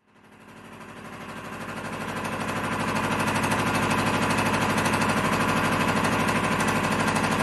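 Homemade rhombic-drive Stirling engine running with a fast, even mechanical beat. It fades in over the first couple of seconds, then holds steady.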